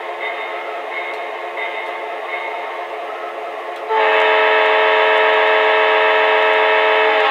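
Onboard electronic sound effects of an MTH model EMD SD9 diesel locomotive, played through its small speaker: a steady diesel engine idle, then about four seconds in a loud horn blast of several notes held for about three seconds and cut off.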